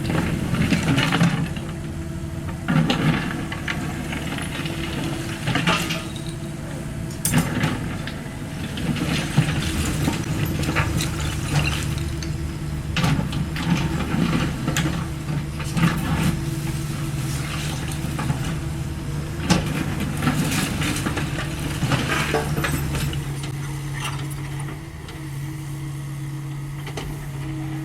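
Caterpillar 305.5E2 mini excavator's diesel engine running steadily under hydraulic work, with irregular knocks and clatter of concrete and brick rubble being pushed and scooped. The knocks thin out near the end, leaving mostly the engine.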